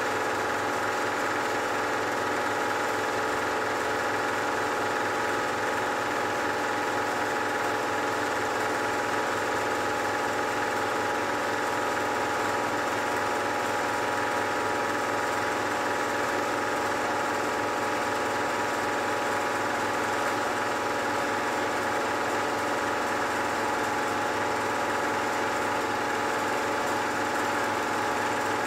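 Rebuilt two-head (twin-cylinder) belt-driven air compressor running steadily, its pump building pressure in the tank.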